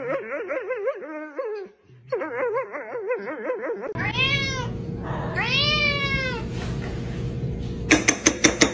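A cat meowing twice, two long calls that rise and fall in pitch. Before them comes a wavering, quavering pitched wail, and near the end a quick run of sharp clicks or taps.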